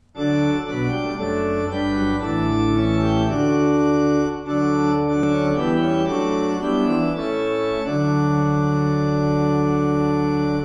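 Organ playing slow sustained chords that change every second or so, then settling on one long held chord for the last few seconds before it stops.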